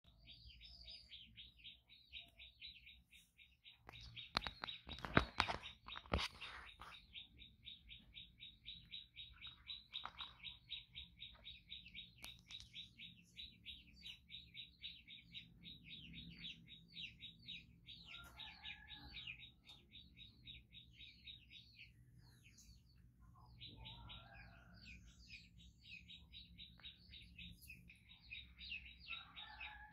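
Fast, even run of high-pitched bird chirps, repeating many times a second almost without pause, with a short break about two-thirds of the way through. A few sharp knocks sound about four to six seconds in.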